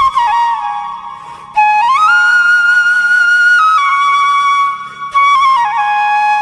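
Solo flute melody played as a ringtone. The line moves in short steps, slides up about a second and a half in to a long held high note, then steps back down.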